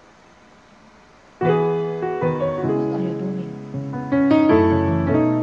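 Faint hiss, then background music starts abruptly about a second and a half in, with held notes and chords.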